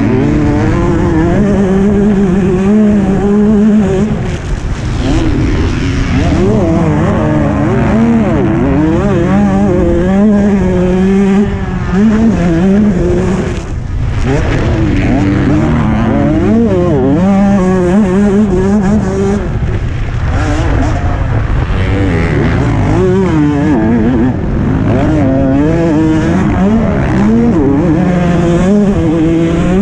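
MX2 motocross bikes racing, their engines revving hard and dropping back again and again through gear changes and jumps, the pitch swinging up and down the whole time.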